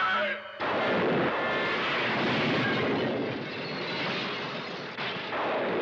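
A sudden loud crash about half a second in, then a long rumbling crash of timber and plaster falling as a room's ceiling caves in. It eases a little and swells again near the end.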